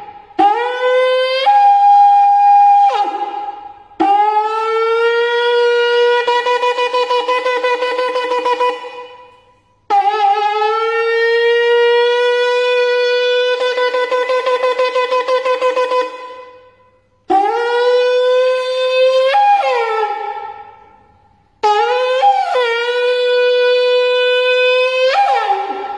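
Eland horn shofar blown in a series of five blasts. Some are held steady for about five or six seconds, and several break up to a higher note or drop back down at the start or end.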